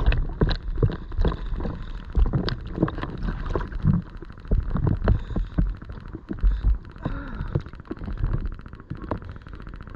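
Sea water splashing and gurgling close by: irregular sloshes and knocks over a low rumble, uneven in loudness.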